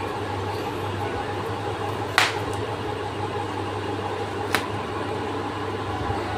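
Metal barrel bolt on a door being slid by hand, giving two sharp clicks about two seconds apart, the first louder, over a steady hum.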